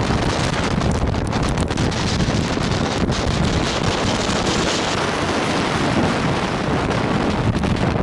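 Strong gale buffeting the camera's microphone: loud, steady wind noise with a low rumble, unbroken throughout.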